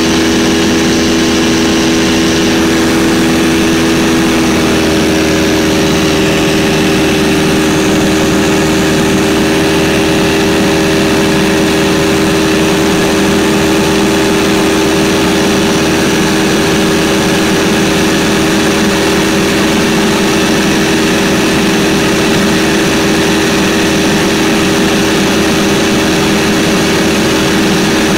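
Cabin noise of a 1946 Stinson 108 in flight: its piston engine and propeller give a loud steady drone. About four to five seconds in, the pitch of the drone shifts slightly, then holds steady again.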